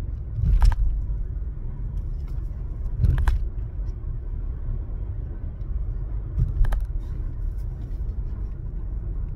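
Steady low rumble of a car's interior, with a few brief clicks about three seconds apart.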